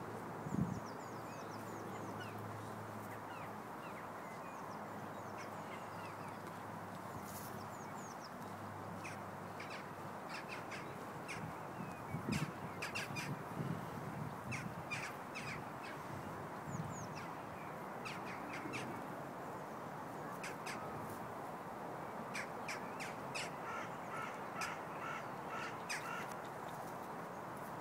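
Birds calling and chirping over a steady background hiss, with short repeated calls growing busier in the second half, and a few soft thuds partway through.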